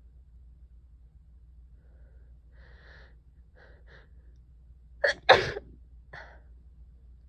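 A person with a head cold sneezing once, about five seconds in, after a few quick catching in-breaths. A short breath follows.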